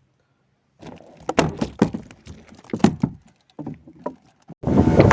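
Irregular knocks and clatter of gear handled aboard a small wooden fishing boat. About four and a half seconds in, a loud, steady rush of boat engine and wind noise starts abruptly.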